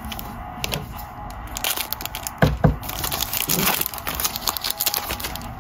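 A Panini Playbook foil trading-card pack being torn open by hand, crackling and crinkling, with a louder rip about two and a half seconds in.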